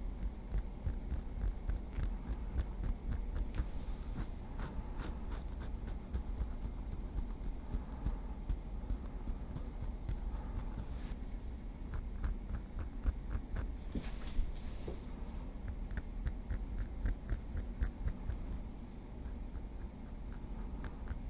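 A small wooden stick tapping lightly in quick runs of small clicks, with scratchy rubbing in between.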